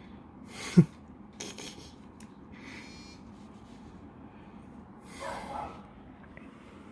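Handling of a pod vape: small rubs and clicks as the plastic pod cartridge is pushed against the device, which will not lock in. A short, sharp vocal or breath sound comes about a second in, and a breathy puff follows near the end.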